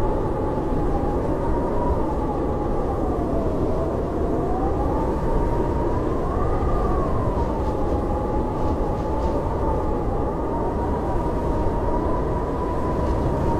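Blizzard wind howling: a steady rush of wind with one whistling howl that slowly rises and falls in pitch.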